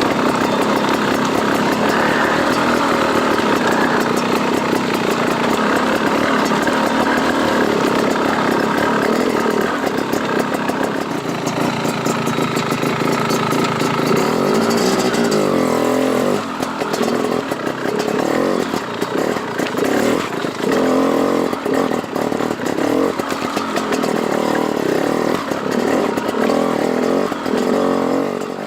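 Dirt bike engine running steadily on the trail. About halfway through, the throttle starts going on and off in quick repeated bursts as the bike works through a rough, slow section.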